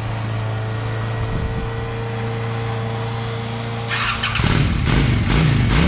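Honda Shadow motorcycle's V-twin engine idling steadily, then louder and uneven for the last couple of seconds, with sharp knocks about four seconds in.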